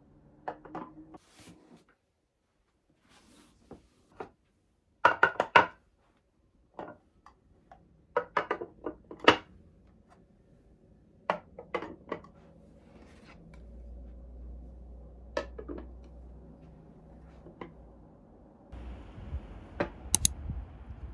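A lacquered tiered food box (jubako) being unpacked and stacked: tissue paper rustles, and a series of sharp knocks and clacks sound as the tiers and lid are set down and fitted together. About 19 s in, steady outdoor background noise takes over.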